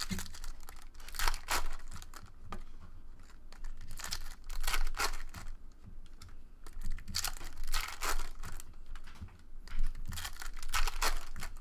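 Foil trading-card pack wrappers being handled and torn open, with irregular spells of crinkling and tearing.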